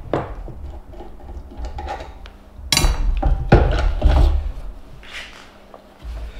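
A portable bandsaw being taken off its mount by hand: knocks, clunks and scraping of the saw and its parts, loudest in two sharp knocks about three seconds in.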